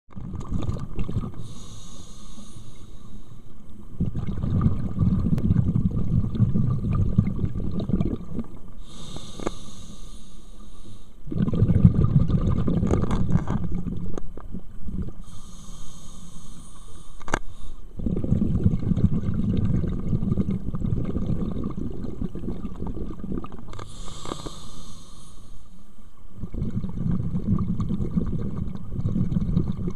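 Scuba diver breathing through a regulator underwater: a short hiss on each inhale, then a few seconds of rumbling exhaust bubbles, in a slow, even cycle of about four breaths.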